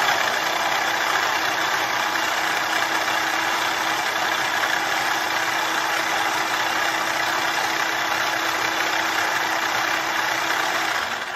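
Small Oster food processor running steadily under hand pressure, blending apple and banana into a purée, with an even hum; the motor stops shortly before the end.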